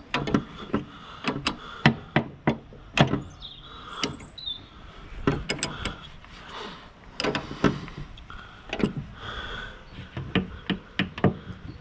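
Spanner working the threaded adjuster of a round baler's rear chain tensioner: irregular sharp metallic clicks and knocks as the nut is wound on a little at a time.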